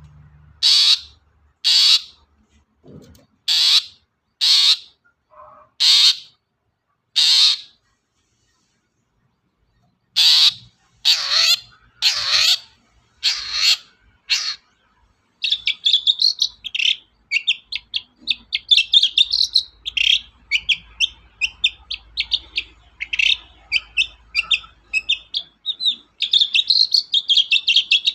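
Long-tailed shrike (cendet) calling: loud separate calls about once a second, a pause of a couple of seconds, then a few more. From about halfway the calls give way to a fast, continuous chattering song of short varied notes.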